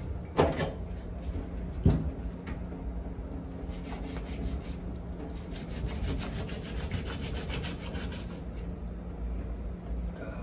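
A large knife cutting up a roasted rabbit carcass on a stainless-steel drainboard: two sharp chops near the start, then quick back-and-forth sawing strokes, about five a second, for several seconds.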